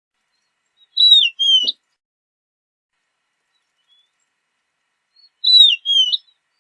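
Horned lark giving two short, high-pitched phrases about four and a half seconds apart, each a falling note followed by a second note that sweeps up at its end.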